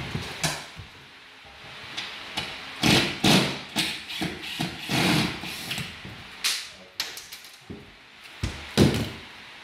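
Irregular knocks and bumps from handling a plywood bulkhead, with a cordless drill driving a screw into the top of its scarf joint.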